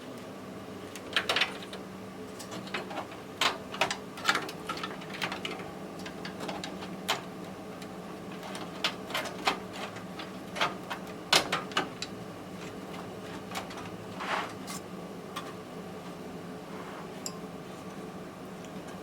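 Scattered clicks, taps and light knocks of parts being handled inside a desktop PC case as connectors are unplugged and the motherboard is worked loose, over a steady low hum.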